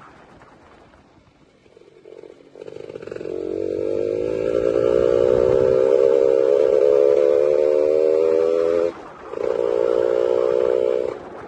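Yamaha F1ZR two-stroke motorcycle engine held at high revs, giving a steady nasal drone. It starts about two and a half seconds in and builds up, cuts out briefly near nine seconds, then comes back and stops near the end.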